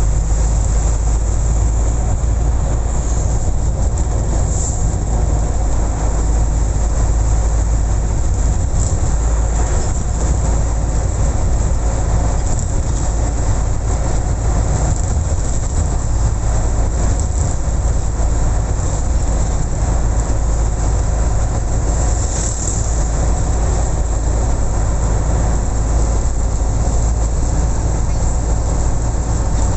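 Steady, loud low rumble of a moving vehicle, an unbroken drone with no distinct knocks or changes.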